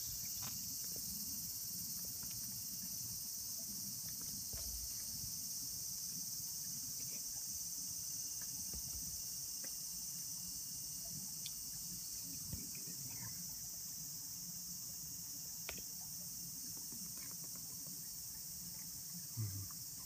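Cicadas singing together in a steady, high-pitched hiss that does not change, with a low rumble underneath and a few faint clicks.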